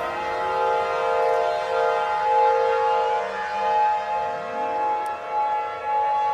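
Layered civil-defence sirens: several steady tones sound together, and from about four seconds in, wails sweep upward from a low pitch.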